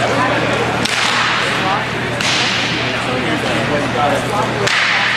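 Sharp cracks of hockey sticks hitting the puck and the floor during street hockey play: three loud ones, about a second in, a couple of seconds in, and near the end, over a steady low hum.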